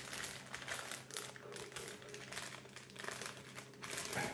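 Clear plastic polybags crinkling as hands handle and open them: a soft, irregular rustle with sharper crackles here and there.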